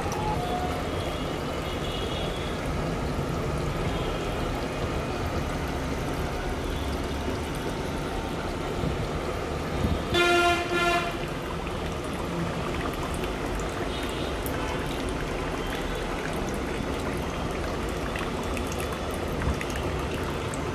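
Water from a toy bathtub's battery-pumped shower streaming and splashing steadily into the plastic tub. About halfway through, a brief horn-like tone sounds for about a second.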